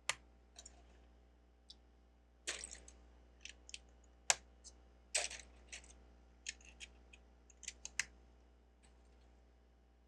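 Plastic Lego bricks clicking and clattering as pieces are handled and pressed together: faint, irregular sharp clicks, thickest through the middle.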